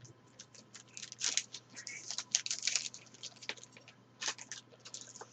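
Foil trading card pack wrapper being torn open and crinkled, a run of irregular short crackles.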